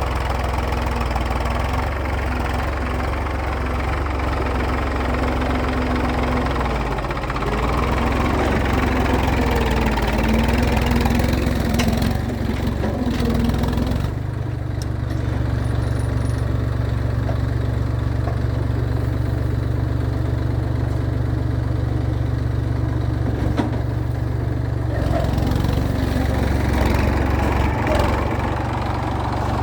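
Massey Ferguson tractor's diesel engine running steadily under load while pulling a plough. About halfway through its sound changes: the higher clatter drops away and the low drone grows heavier. It shifts back a few seconds before the end.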